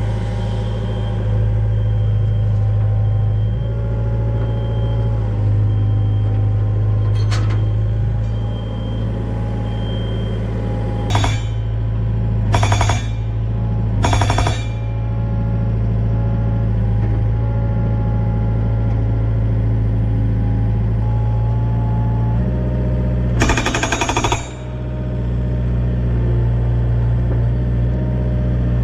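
Mini excavator engine running steadily, its pitch shifting as the hydraulics take load. Over it come short bursts of hammering from a hydraulic rock breaker driving a timber fence post: three short bursts around the middle, and a longer one of about a second later on.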